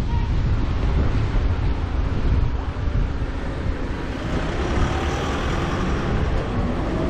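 Street traffic noise with a vehicle engine passing, its pitched note coming through in the second half, over a steady low rumble of wind on the microphone.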